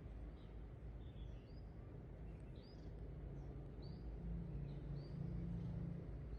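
Small birds chirping faintly, a dozen or so short high chirps scattered through, over a low steady background rumble that grows a little louder about four seconds in.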